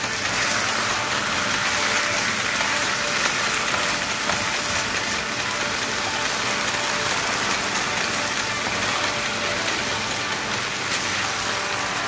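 Steady sizzling of food frying in a pan.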